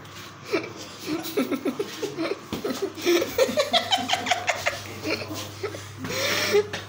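Laughing and giggling in many short pitched bursts of voice, some rising in pitch, over a steady low hum.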